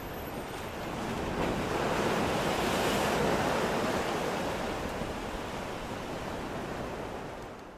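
Ocean surf washing onto the shore, one wave swelling to its loudest about two to three seconds in and then easing off, fading out near the end.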